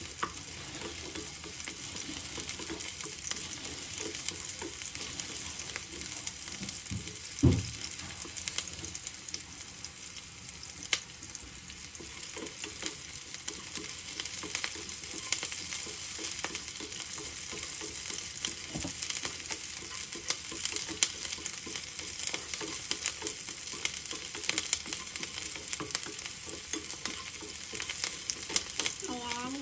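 Sliced onions sizzling and crackling in hot oil in a nonstick frying pan while a wooden spatula stirs and scrapes them. There is one dull thump about seven and a half seconds in.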